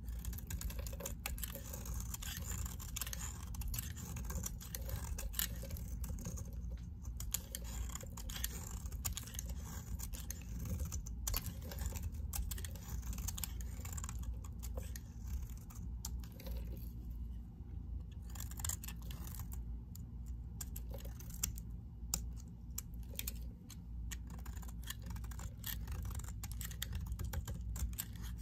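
A snap-off utility knife blade cutting and scraping a hard bar of soap: a rapid, uneven run of small crunching clicks as flakes and chips break away.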